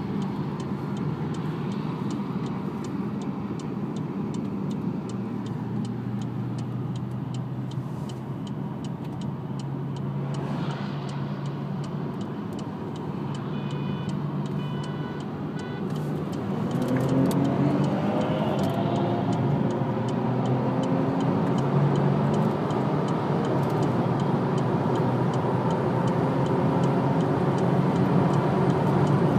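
Car engine and tyre noise heard from inside the cabin at highway speed. It starts as a steady drone; about halfway through it grows louder and the engine note climbs steadily in pitch as the car accelerates hard.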